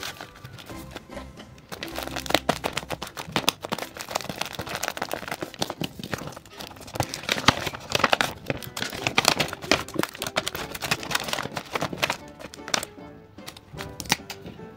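Paper crinkling and rustling in quick irregular bursts as a paper squishy is handled, over background music.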